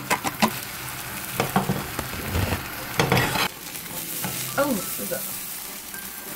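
Egg mixture sizzling in an oiled nonstick frying pan while a rolled omelette is rolled up with a spatula, the utensil clicking and scraping against the pan. The sizzle grows louder for a moment about three seconds in.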